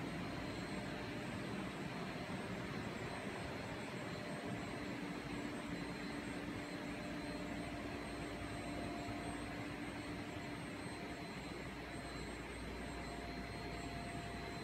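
Steady machinery noise of a glass etching line running: the industrial chiller and the acid circulation pumps. A faint steady whine sits over the even hum, and a low tone comes in about four seconds in and drops out a few seconds before the end.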